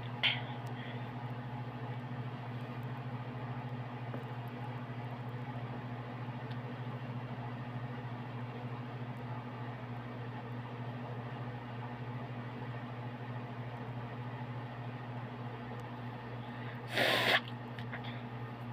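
A steady low hum, with a single short, sharp sneeze near the end.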